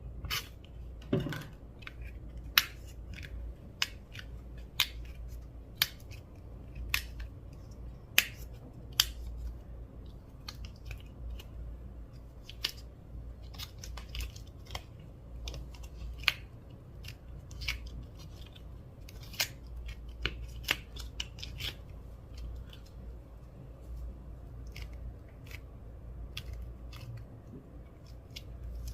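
Clear slime being mixed and pressed by hand, giving off irregular sharp clicks and pops, several a second at times, over a low steady hum.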